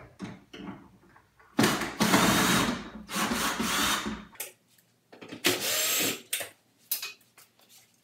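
Cordless drill/driver running in two bursts, backing out the screws that hold a built-in microwave's trim: a long run of about two and a half seconds starting near two seconds in, then a shorter one of about a second, with a few light knocks in between.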